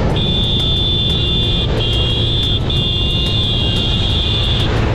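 Motorcycle running at road speed with engine and wind rumble, while a high-pitched vehicle horn sounds three times: a long blast, a short one, then a longer one.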